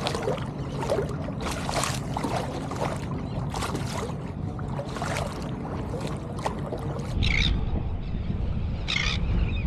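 Kayak paddle strokes, the blades dipping and splashing in the water about once a second, over a steady low rumble of wind on the microphone.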